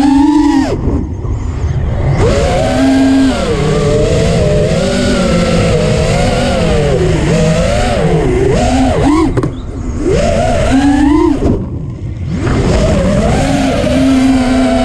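Multirotor drone's electric motors and propellers whining, heard from the drone's own camera. The pitch rises and falls with the throttle, with three short drops when the throttle is cut, about a second in and twice more about two-thirds of the way through.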